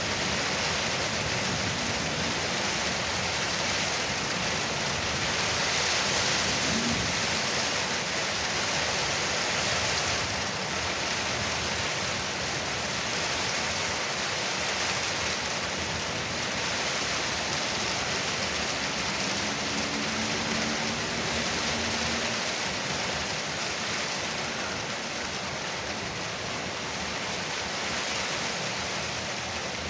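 Heavy rain falling steadily on a porch roof, a dense even patter that swells slightly now and then.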